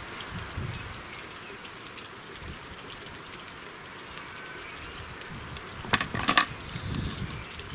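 A faint steady hiss, with a short cluster of sharp metal clinks about six seconds in: hand tools and small engine parts being handled during work on an old engine's spark plug.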